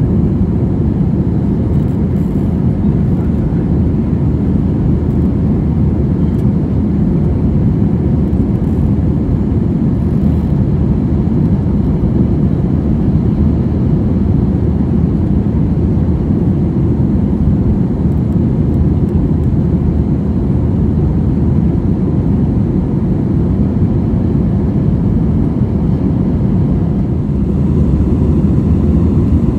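Steady low rumble inside the cabin of an Airbus A320-200 airliner, from its jet engines and the airflow, getting slightly louder near the end.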